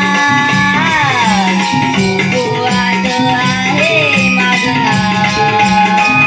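Live Naman folk-theatre music: a child's singing voice sliding between notes over a steady rhythmic accompaniment with jingling, rattling percussion.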